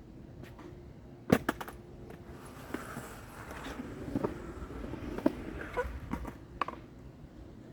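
Skateboard: a sharp clack about a second in, then the wheels rolling for a few seconds, with several smaller knocks from the board.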